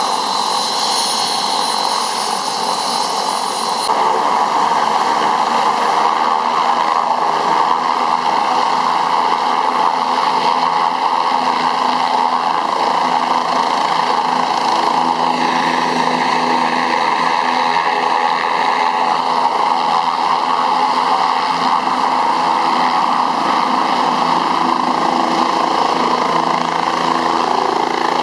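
A turbine air-ambulance helicopter runs steadily with its rotor turning. A thin high whine sounds over the first four seconds and then stops, and the engine and rotor noise grows louder from that point. The helicopter lifts off by the end.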